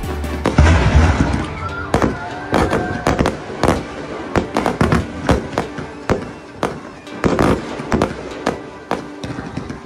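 Fireworks display: a heavy boom about half a second in, then a rapid, irregular run of sharp bangs and crackles from bursting aerial shells.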